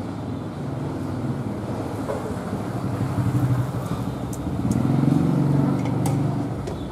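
Engine of a passing road vehicle, a low hum that grows louder about three seconds in, peaks around five seconds and then fades, with a few sharp clicks on top.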